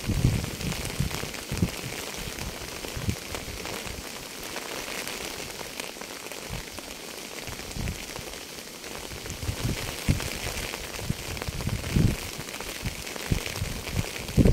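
Rain falling steadily with a constant hiss. Irregular low thumps break through it, thicker in the first few seconds and again toward the end.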